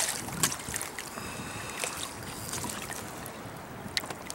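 Wind on the microphone and water lapping around a small fishing boat, with a few brief splashes and clicks as a hooked smallmouth bass thrashes at the surface.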